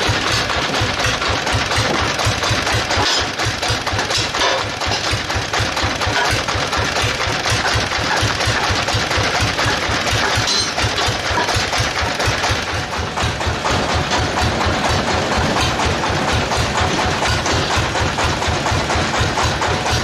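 Sawmill's power engine running steadily at idle, with a fast, even low pulsing, and a few light knocks over it.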